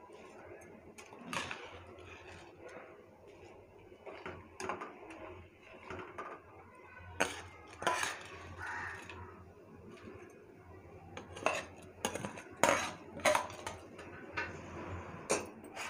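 Irregular metallic clinks and clanks of kitchen utensils against a stainless steel pot while soaked rice is added to boiling water, over a faint steady low hum.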